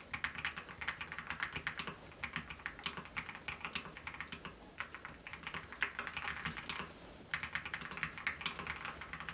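Typing on a COX CF75 full-aluminium 75% mechanical keyboard: a quick, steady run of keystroke clicks, with a brief pause about seven seconds in.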